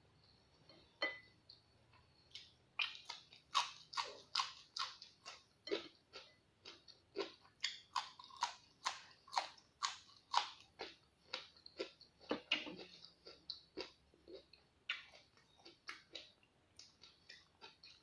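A person chewing crisp raw vegetables, a steady run of crunches about two or three a second that starts a couple of seconds in.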